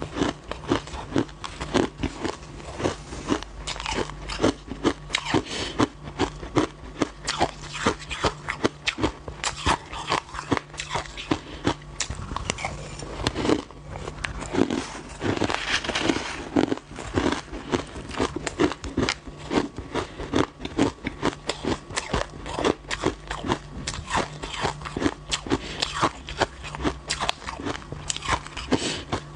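Coloured crushed ice being bitten and chewed close to the microphone: dense, continuous crunching and cracking of ice between the teeth.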